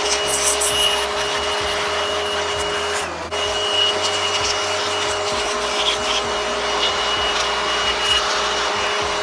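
A small gas-engine power tool running steadily with a constant whine over a rushing noise, dipping briefly about three seconds in.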